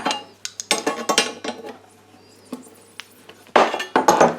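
Spanner and pliers clinking and scraping on a brass compression fitting as its nut is tightened clockwise onto copper pipe: rattling metal clicks, then a quiet stretch, then a louder cluster of clinks near the end.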